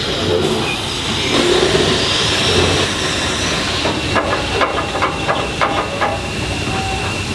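Marion-Osgood Model 73 steam shovel working: steam hissing, then from about four seconds in a run of sharp metallic clanks and knocks, several a second, from its machinery.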